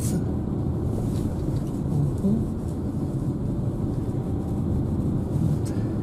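Car driving slowly, heard from inside the cabin: a steady low rumble of engine and tyre noise.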